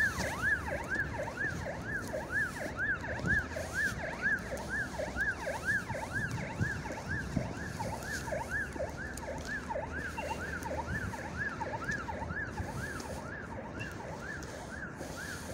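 A siren sounding in quick, even rising-and-falling sweeps, about two a second, easing off slightly near the end. Footsteps on asphalt sound underneath.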